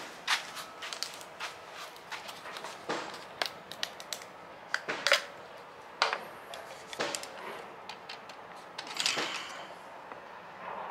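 Hands handling plastic parts on a lawn-mower engine: a series of sharp clicks and light knocks as the oil-fill cap comes off and a plastic oil bottle is picked up and tipped toward the fill opening.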